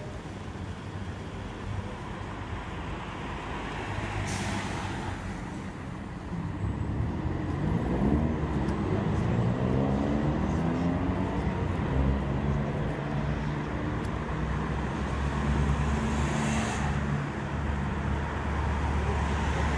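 Street traffic: a motor vehicle pulls away with its motor note rising in pitch over a steady low engine hum. Two short bursts of hiss, one about four seconds in and one near the end.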